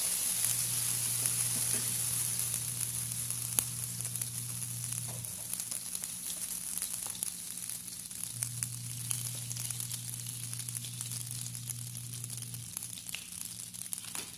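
Butter sizzling as it melts in a hot non-stick wok, with light scrapes and taps of a spatula scooping more butter from a plastic tub into the pan. The sizzle gradually eases.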